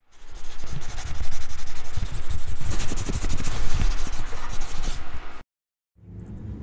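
Intro sound effect over the title logo: a loud, rough scraping rush with a fast crackle running through it, cutting off suddenly about five seconds in. After a brief silence, a lower outdoor rumble begins near the end.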